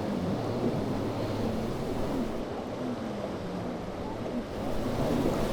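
Boat engines running over the wash of waves, with wind buffeting the microphone.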